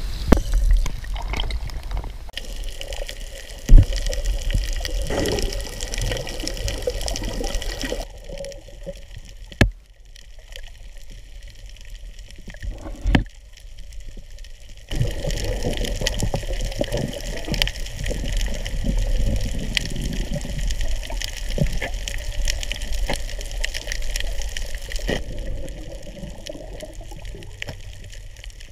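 Water splashing and sloshing around a swimmer who has just jumped in off a boat, with a couple of sharp knocks. Then muffled water sound underwater, with a few knocks.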